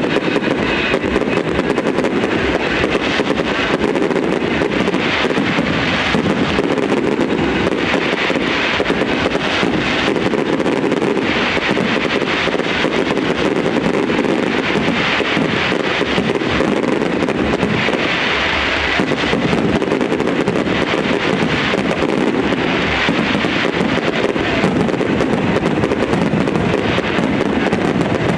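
Fireworks display: a continuous barrage of aerial shells bursting, with dense crackling and rapid bangs in quick succession.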